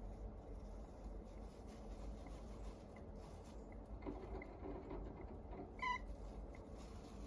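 A sleeping hamster snoring faintly: tiny squeaky breaths recurring every half second or so, with one brief, louder squeak about six seconds in.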